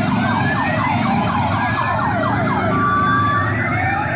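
Several sirens sounding at once: a fast repeating yelp over slow rising wails, with a steady tone joining near the end. Motorcycle engines run underneath as the escort column rides up.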